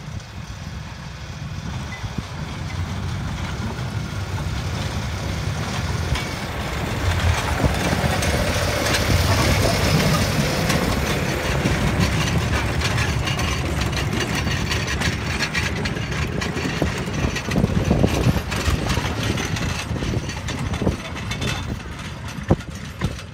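Small narrow-gauge park train approaching and passing close by: the locomotive running and the open wooden carriages rolling on the rails. The sound builds to its loudest about a third of the way in and then eases off as the train moves away, with a few separate knocks near the end.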